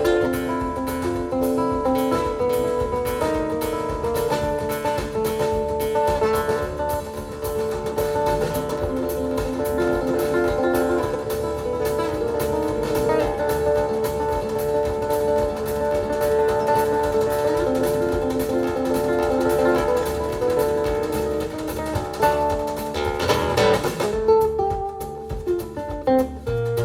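Focal Grande Utopia EM loudspeakers, driven by a Western Electric 97A tube amplifier, playing instrumental music led by plucked guitar, with held notes and a change in texture near the end.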